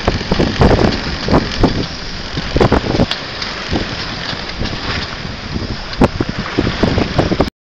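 Water rushing and splashing along the hull of a sailboat under way in choppy water, with wind buffeting the microphone; frequent short slaps and gusts over a steady rush.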